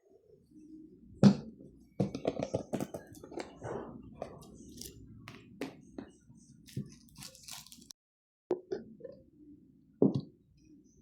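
Close handling noises: a run of sharp clicks, taps and soft rustles from small objects being handled, with a louder knock about a second in and another near the end.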